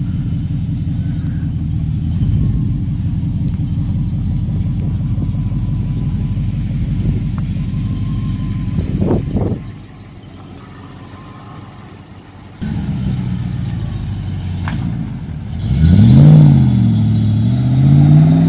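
Triumph Stag's 3.0-litre V8 running at idle through its twin exhaust, steady and low, with a quieter stretch in the middle. Near the end it revs up and pulls away, the engine pitch climbing, dropping as the manual gearbox shifts up, then climbing again.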